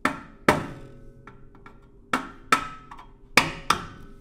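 Hammer tapping a flat-head screwdriver against a metal key of an mbira dzavadzimu to push the key through the bridge and lower its pitch. There are six sharp taps in three uneven pairs, each leaving a brief metallic ring.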